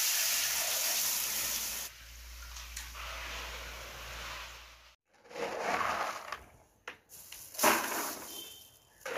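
Dried chickpeas (gram) pouring from a bag into a basin of water in a loud rushing hiss for about two seconds, then a hand swishing the soaking chickpeas around in the water. After a break, a few short rustling, scraping bursts of handling, the loudest near the end.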